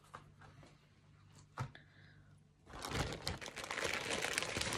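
Thin plastic packaging crinkling and rustling as it is handled. It starts a little over halfway through, after a single light knock.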